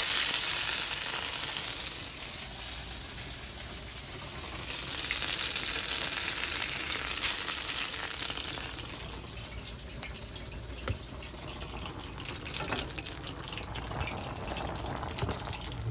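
Chicken breasts sizzling as they sear in a hot pan, louder for the first nine seconds or so and then settling to a quieter sizzle, with a few light knocks.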